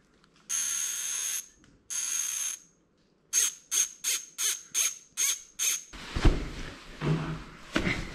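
Bicycle rear-hub freewheel ratchet buzzing as the new wheel spins: two buzzes of about a second each, then seven short buzzes about three a second. Irregular knocks and scuffs follow in the last two seconds.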